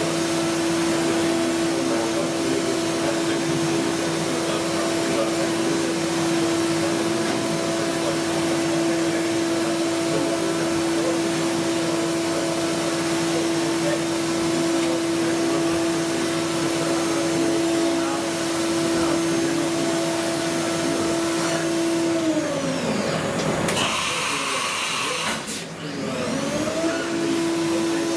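DMG Mori Milltap 700 CNC machining centre spindle running with a steady whine. About 22 s in it spins down, there is a short hiss of air, and near the end it spins back up to the same pitch.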